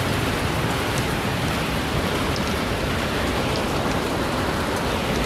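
Heavy hail with rain pelting the ground: a dense, steady hiss with occasional faint sharp ticks of single stones.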